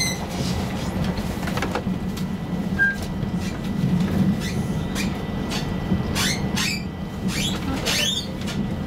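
Inside an A35 tram running along its track: a steady low rumble of wheels and running gear, with a faint steady whine and several short squeaks, most of them in the second half.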